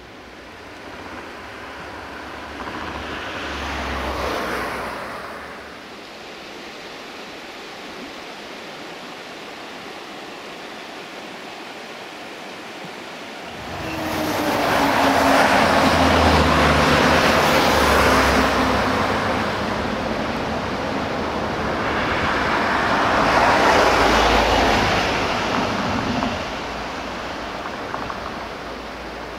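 Road traffic: vehicles pass one after another, each swelling up and fading away. The loudest pass comes about halfway through and carries a low engine tone that drops slightly in pitch as it goes by.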